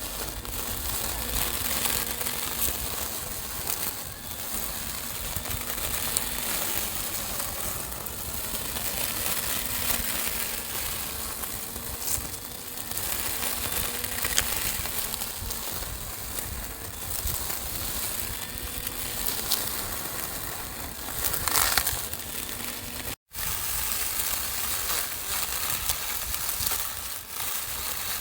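Small handheld lawn mower running with a faint steady motor hum while its blade cuts through grass and vegetation, a continuous crackling and crunching.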